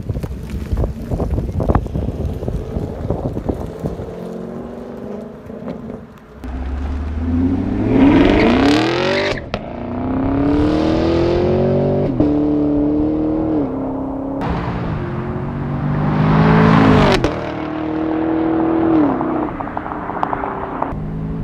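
2017 Chevrolet Camaro SS's 6.2-litre LT1 V8 through its stock active exhaust, the valves held open by a pulled fuse. A low rumble at first; then, about six seconds in, the car accelerates hard, its revs climbing and dropping back at each of several upshifts.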